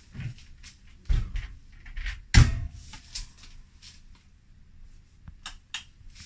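Hamilton Beach blender's plastic jar being set onto its base and its lid pressed on: a series of knocks and thumps, the loudest about two and a half seconds in. A few light clicks follow near the end as buttons on the control panel are pressed, before the motor starts.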